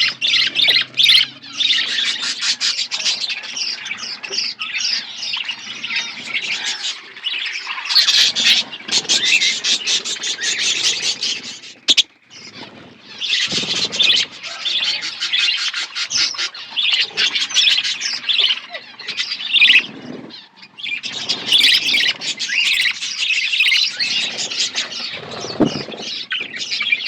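A flock of budgerigars chattering and chirping, a dense warbling mix of many birds at once, with brief lulls about twelve and twenty seconds in.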